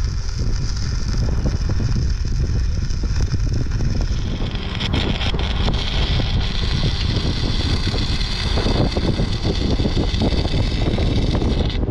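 Electric arc welding on steel, crackling and hissing, with wind buffeting the microphone. The crackle grows denser from about halfway through.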